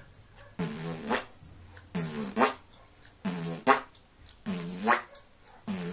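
Beatboxed 'wob wob' bass: a low buzzing mouth sound through pursed lips, repeated about four times a bit over a second apart. Each wob starts steady and ends in a louder, brighter push as the tongue presses forward.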